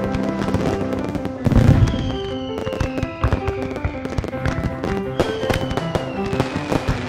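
Fireworks banging and crackling in quick irregular pops, with one deeper, louder boom about a second and a half in, over background music.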